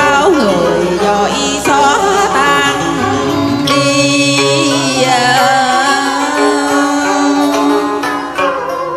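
A woman singing a cải lương (Vietnamese reformed opera) passage with wavering vibrato into a microphone, over amplified backing music.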